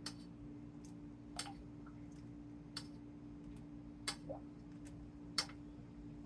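A spoon knocking sharply against a dish about every second and a half, five or six light taps in all, as crumbled feta cheese is spread onto phyllo dough. A steady low hum sits underneath.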